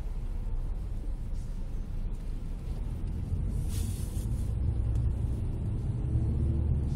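Steady low rumble of road traffic heard from inside a car's cabin: the car's own engine and tyres, with a column of military trucks driving alongside. There is a brief hiss about four seconds in.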